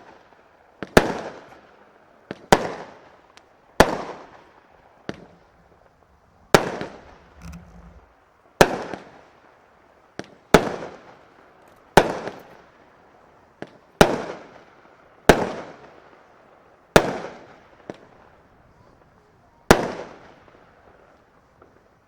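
Consumer firework battery (Albert Feuerwerk cake) firing shot after shot: about a dozen sharp bangs, one every one and a half to two seconds, each trailing off briefly. The shots stop shortly before the end.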